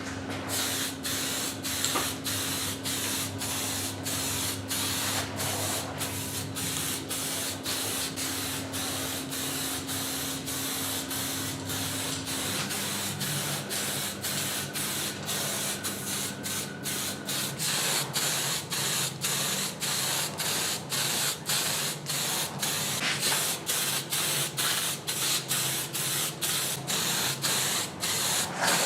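Compressed-air spray hissing in quick repeated bursts, about two a second, over a steady machine hum that drops in pitch about twelve seconds in.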